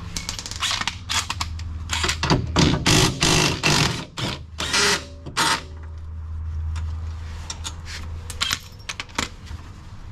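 Hand tools working on the rear suspension bolts: a socket wrench ratcheting in quick bursts of clicks with metal clatter, over a steady low hum. The clicking is dense for the first five seconds or so, then thins to a few clicks near the end.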